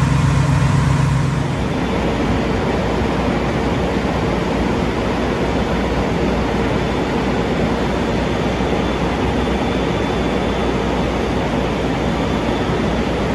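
Fire engine pumping at a fire: its diesel engine runs steadily at raised revs driving the water pump through charged hose lines, heard as a loud, even rush. About a second and a half in, a deeper engine drone drops away.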